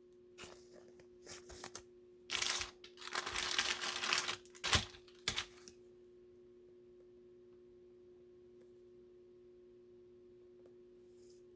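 Trading cards being handled and slid into plastic sleeves and holders: clusters of plastic rustling and light clicks for the first five seconds or so, then quiet with a faint steady hum.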